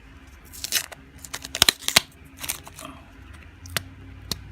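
Hands handling sports-card packaging: irregular crinkling and tearing rustles with several sharp clicks, the busiest stretch in the second and third seconds.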